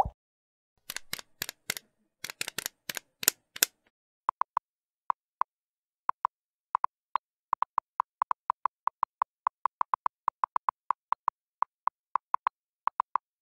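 Typing sound effect for on-screen text: a quick flurry of about ten sharp clicks, then a steady irregular run of short beeping blips, roughly three or four a second, as the characters appear.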